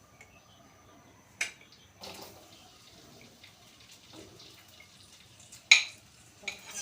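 Water running from a tap into a kitchen sink, with a few knocks of dishes; a loud sharp clatter near the end.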